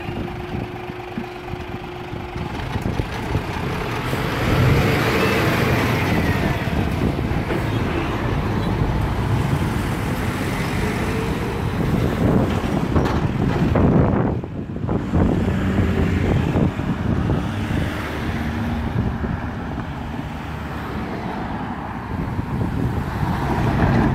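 Road traffic on a busy main road driving over a railway level crossing just after the barriers rise: cars, a van and lorries passing close by one after another, their engine and tyre noise swelling and fading.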